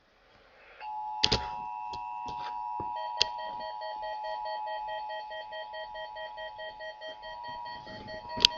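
NOAA Weather Radio Emergency Alert System attention signal: a steady two-tone alarm tone that comes in about a second in and holds, announcing the Required Monthly Test. Several sharp clicks cut across it, the loudest near the end, and from about three seconds in a rapid pulsing beep sounds underneath.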